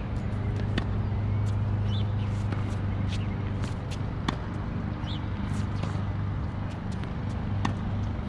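Tennis balls being struck and bouncing: irregular sharp pops, several a second at times, over a steady low hum like an idling engine or traffic. A few brief high chirps are heard between them.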